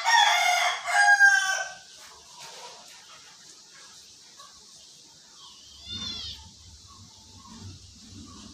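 A rooster crowing once, a loud call of about two seconds at the start. A short high call follows about six seconds in, over a faint low rumble.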